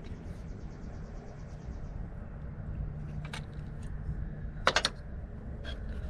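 Hand tools working on car battery terminal hardware: a quick run of light ticks for about the first two seconds, then a few separate sharp metallic clinks, the loudest a short cluster about three quarters of the way through.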